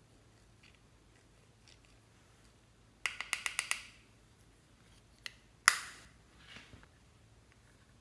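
Hard plastic clicks and taps from handling an eyeshadow compact and a plastic spatula: a quick run of about six sharp taps, then a single tap and a louder snap about two seconds later.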